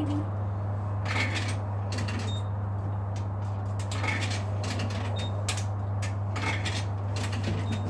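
Coins clinking, fed one after another into a milk vending machine's payment slot, a sharp clink about every second, over a steady low machine hum.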